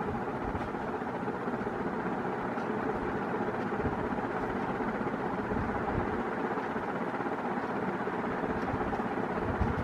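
NuTone Proline 48-inch four-blade industrial ceiling fan running: a steady motor hum and blade whoosh, with a few brief low thumps.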